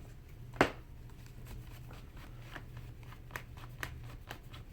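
Small clicks and taps of a screwdriver and hands working on a laptop's plastic underside, with one sharper click about half a second in, over a low steady hum.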